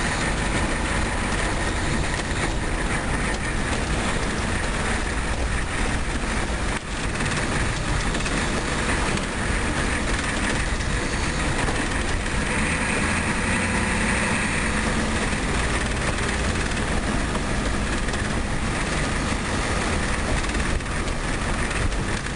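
Steady road noise of a car driving on a winding mountain road, tyre and engine rumble heard from inside the cabin.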